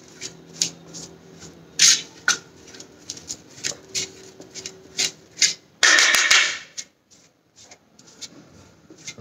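A steel spoon scraping and tapping on a stainless steel plate as wet potato starch is spread across it, in short irregular strokes, with a longer, louder scrape about six seconds in.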